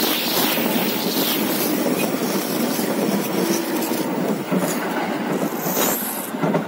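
A JR 205-series electric commuter train passing close by, a steady rumble and clatter of its wheels on the rails, with a sharp clack near the end.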